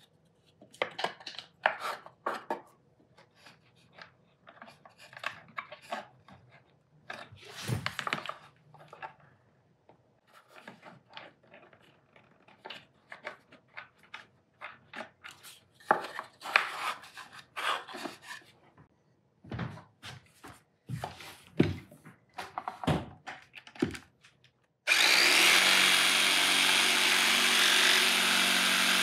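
Workshop handling sounds: scattered knocks, clicks and scrapes of parts and tools being handled. About 25 seconds in, a power tool starts and runs steadily and loudly.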